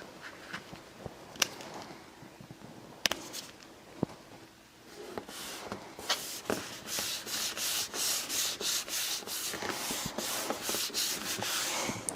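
Paper being rubbed and smoothed down by hand onto glued cardstock: a few light taps and clicks, then, from about six seconds in, a run of quick rubbing strokes, about two or three a second.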